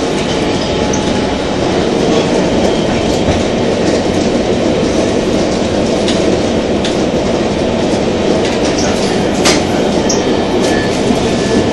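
Passenger train running at speed, heard from inside the carriage: a steady rumble of wheels on the rails, with a few clicks and one sharp click near the end.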